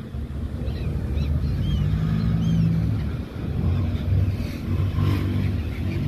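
Steady low rumble of a boat's engine, with gulls calling overhead: several short, high cries in the first half.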